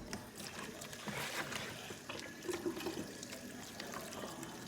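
Water splashing and trickling while strawberries are washed by hand, with scattered small knocks and clicks.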